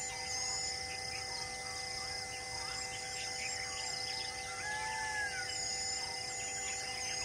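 Birds calling: repeated short high chirps and a few slower whistled notes that rise and fall, over several steady humming tones.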